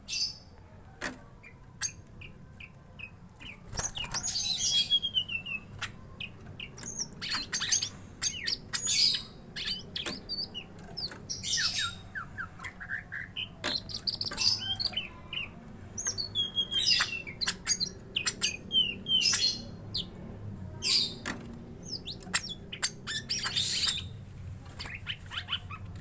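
Caged green leafbirds (cucak ijo) calling at each other as rivals: repeated bursts of sharp chirps, short descending whistles and trills. The calls are sparse for the first few seconds, then come thick and fast.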